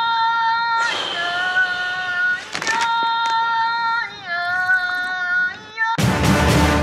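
A voice singing a slow, wordless melody in long held notes that step from pitch to pitch. About six seconds in, a loud noisy burst comes in.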